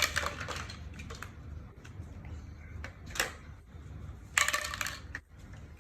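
Small hard objects clinking and rattling as they are handled: scattered clicks, one sharper click about three seconds in, and a brief clattering rattle a little after four seconds.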